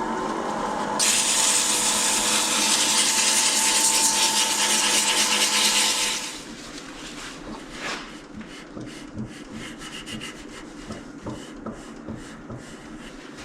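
Wood lathe running with a steady hum while a wooden knob spins. From about a second in, something rubs hard against the turning wood with a loud rasping hiss. About six seconds in the lathe stops, and quieter, uneven scraping strokes on the wood follow.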